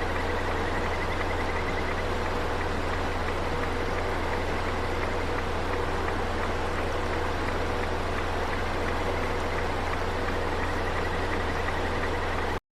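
River water rushing steadily over the stream bed, with a faint rapid trill in the first couple of seconds and again near the end.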